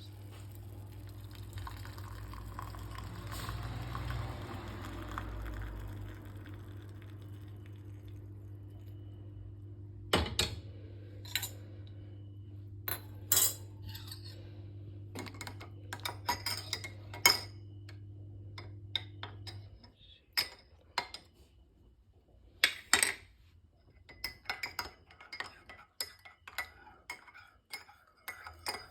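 Kitchenware clinking: scattered sharp clinks of metal and glass through the second half, over a steady low hum that stops about two-thirds of the way through.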